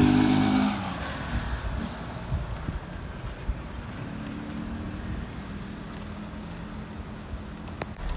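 A vehicle engine, loud for the first split second and then dropping away, leaving a steady low rumble with a faint hum and a single sharp click near the end.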